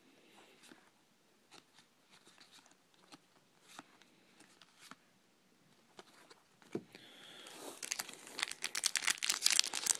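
Faint ticks of cards being handled, then, from about seven and a half seconds in, a trading-card pack wrapper being torn open and crinkled, getting louder toward the end.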